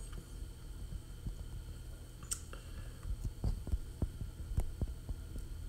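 Steady low electrical hum, with a scattered run of faint clicks and taps from about two seconds in.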